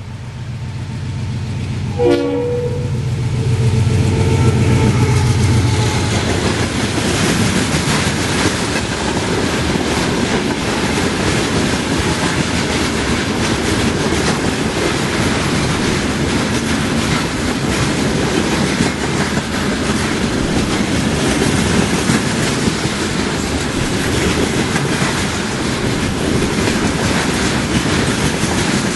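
HO-scale model freight train rolling past close by: a steady rattling clatter of the cars' small wheels over the rail joints and turnouts. About two seconds in there is a sharp click, and a short horn sounds over a low engine hum, both fading out by about six seconds.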